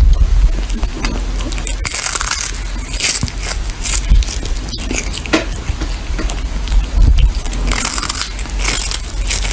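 A cat chewing on a small fish held in its paws, with a run of irregular wet crunches as it bites through it.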